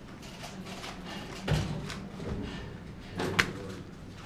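Two knocks over a steady low room hum: a dull thump about a second and a half in, then a sharper, louder click near the end.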